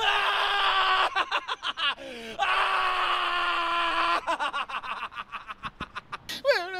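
A man screaming at full force: two long, hoarse screams, the second the longer, with short rapid gasps between them and after.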